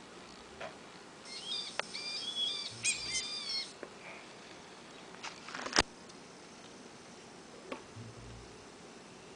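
Small speaker of an electronic sound module chirping out a synthetic bird-like twitter of quick, stepped warbling notes for about two and a half seconds. Then come several sharp clicks as the wiring is handled, one of them louder than the chirping.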